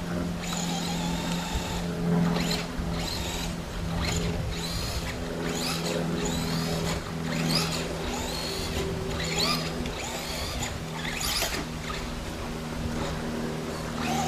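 Traxxas Stampede 2WD RC truck's brushless electric motor whining in a string of short throttle bursts, its pitch rising and falling with each blip as the truck works over rough dirt. A steady low hum runs underneath.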